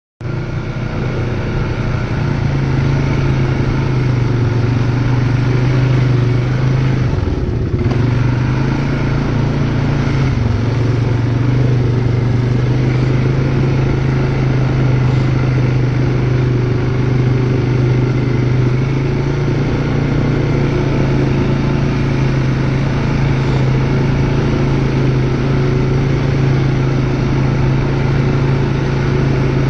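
Single-cylinder ATV engine running at a steady, low speed under way. Its note dips briefly about seven seconds in, then settles back to the same even pitch.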